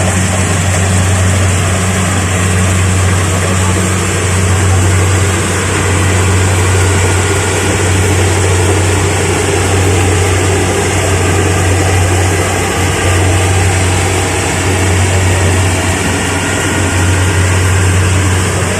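Kubota DC-70 Plus rice combine harvester running steadily, its diesel engine giving a strong, even low hum under a dense mechanical din.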